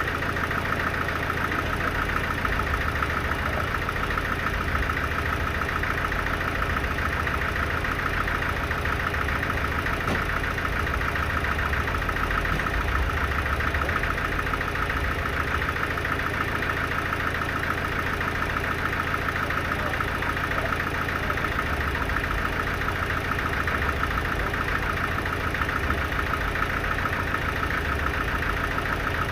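Sawmill machinery running steadily: an engine-like drone with a fast, even pulse.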